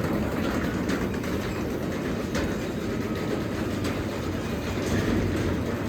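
Garage door closing under a Craftsman 3/4 hp DC belt-drive opener: a steady rumble and clatter of the door running down its tracks, the door louder than the opener's belt drive.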